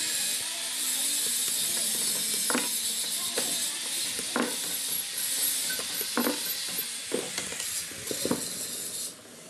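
Irregular metallic clicks and knocks from an oily sewing machine head being handled, over a steady hiss that drops away near the end.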